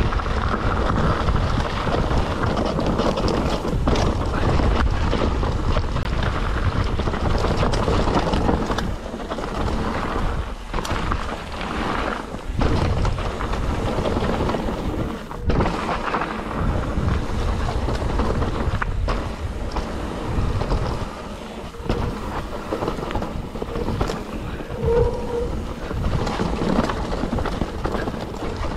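Mountain bike ridden fast down a dirt forest trail: wind rumbling on the camera microphone over steady tyre noise on dirt, with frequent knocks as the bike goes over bumps. A brief squeal near the end.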